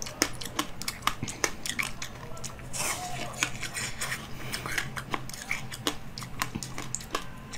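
Biting and chewing frozen basil-seed ice: a rapid, irregular series of sharp crunches as the ice cracks between the teeth.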